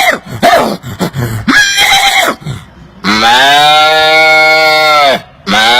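A man imitating animal calls with his mouth: a few short wavering calls, then from about three seconds in a long, steady cow-like moo that drops at its end, and a second moo starting near the end.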